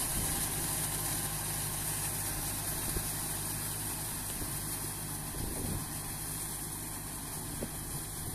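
Kubota MU5501 tractor's four-cylinder diesel engine running steadily as the tractor works through deep paddy-field mud, fading slightly as it moves away.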